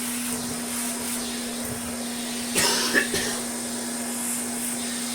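Hoover Constellation 867A vacuum cleaner's motor running steadily: a constant hum with a high airy hiss. About halfway through there are two brief knocks.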